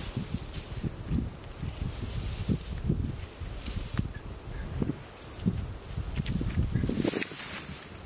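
Crickets chirring steadily in a high, unbroken drone. Over it come many irregular low thumps and rustles, the loudest sounds here, like footsteps or handling noise.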